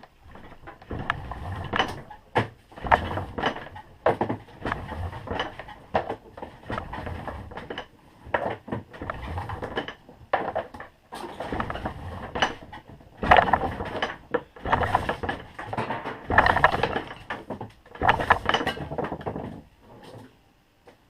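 Insulated copper wire being pulled through a vise-mounted wire stripper whose blade slits the insulation, in a series of rough scraping pulls with metallic clicks, about one every second.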